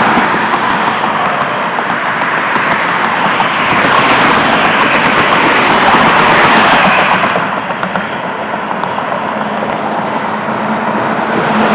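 Road traffic passing steadily, a continuous rush of cars going by that swells louder twice partway through.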